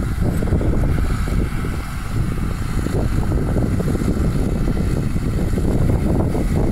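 Massey Ferguson tractor engine running steadily under load while pulling a disc harrow, mixed with wind buffeting the microphone.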